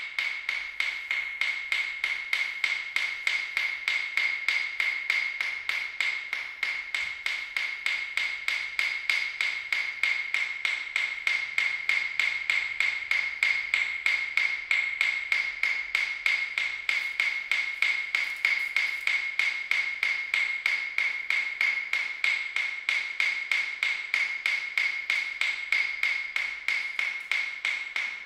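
Steady, rapid ticking: evenly spaced sharp clicks, several a second, each with a short high ringing note, keeping an unchanging beat throughout.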